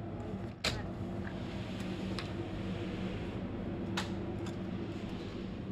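Steady low hum of room ventilation with a sharp metal click under a second in as a door handle and latch are worked, then a softer click about four seconds in.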